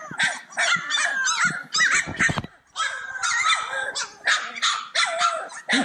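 A litter of three-week-old Cane Corso puppies yipping and whining, many short high-pitched yips overlapping one another without a break.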